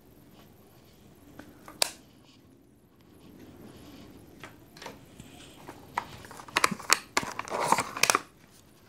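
Hands handling a small white cardboard box: a single sharp click about two seconds in, then from about six seconds a quick run of clicks, taps and rustling as the box is opened.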